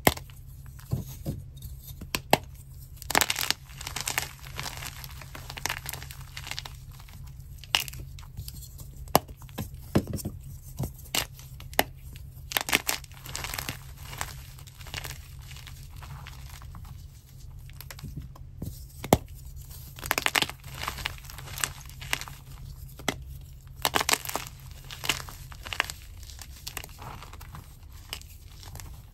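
Water-soaked chalk chunks being squeezed and crumbled by hand in a bowl: irregular crunching and crackling, with a louder sharp crack now and then.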